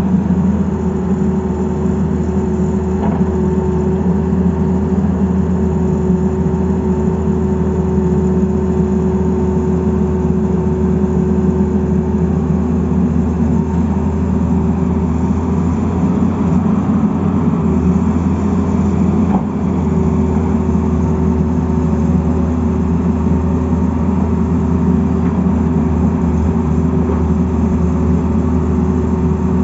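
Tata Hitachi Zaxis 220LC excavator's diesel engine running steadily under working load while it digs, with a steady tone above the low drone. A brief dip with a click about two-thirds of the way through.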